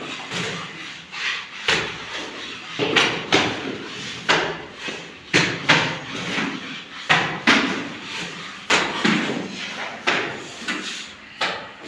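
Plastering work: a mason's trowel slapping and knocking as mortar is worked onto a wall, in irregular sharp strikes, often in quick pairs, about one or two a second.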